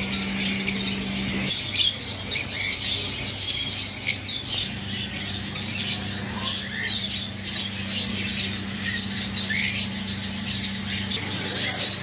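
A dense chorus of caged pet birds (lovebirds, cockatiels, canaries and budgerigars) chirping and squawking over one another in constant high chatter. Under it runs a steady low hum that drops out for about three seconds near the start.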